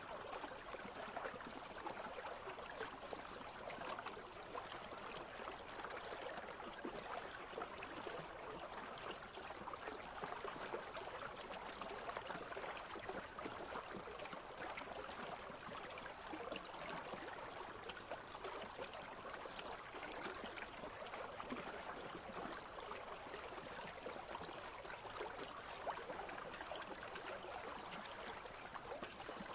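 Small country stream flowing over stones: a steady babbling and trickling of water.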